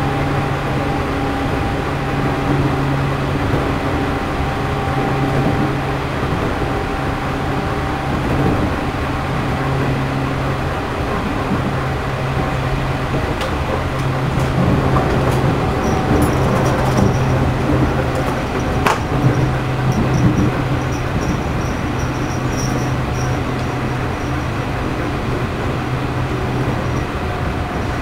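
Running sound of the JR East 211 series motor car MoHa 211-1, heard from inside, a car known for its unusual external-fan motor noise. The motor and gear hum holds one steady pitch under the rumble of the wheels, with a few sharp clicks about two thirds of the way through.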